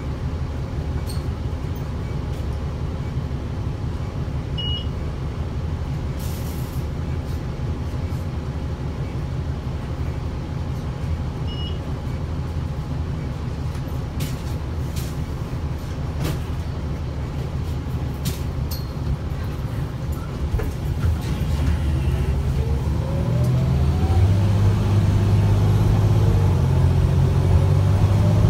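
Gillig BRT transit bus heard from inside the cabin: the engine idles with a steady low drone and a few light clicks and rattles while the bus stands. About three quarters of the way through, the engine and drivetrain grow louder with a rising whine as the bus pulls away and accelerates.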